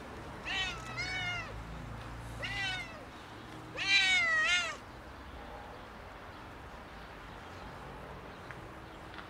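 Ginger-and-white stray cat meowing to be fed: a run of short, arching meows over the first few seconds, the last one longest and loudest about four seconds in.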